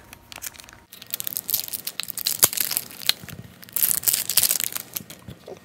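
Thin plastic wrapping crinkling and tearing as it is pulled off a streaming stick, a busy crackle that starts about a second in and swells twice, loudest near four seconds.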